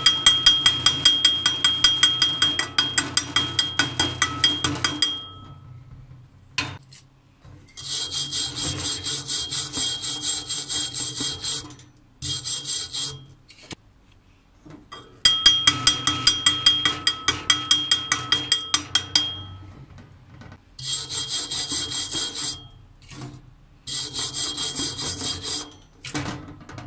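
Hand wire brush scrubbing a fresh weld bead on thin square steel tube, metal bristles scraping over the metal in quick back-and-forth strokes, several spells of strokes with short pauses between them.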